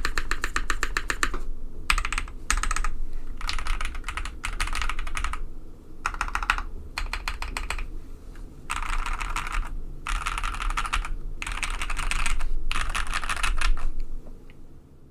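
Fast typing on a KBD67 Lite R2 mechanical keyboard with SP Star Meteor White linear switches on a polycarbonate plate and PBT keycaps: a board that thocks, with a bit of clack. The keystrokes come in quick runs of a second or two with short pauses between them, and stop near the end.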